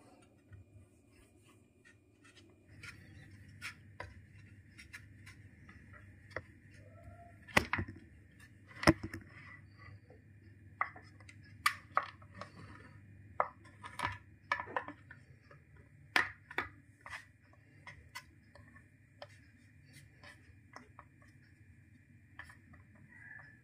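Kitchen knife cutting soft dough sticks against a wooden chopping board: irregular sharp taps and knocks of the blade on the wood, the two loudest close together a third of the way in. A faint steady hum runs underneath.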